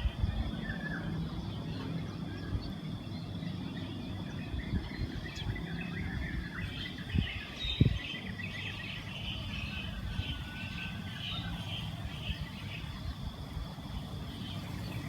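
Outdoor ambience of small birds chirping and twittering over a low, steady hum of distant traffic, with a couple of brief knocks.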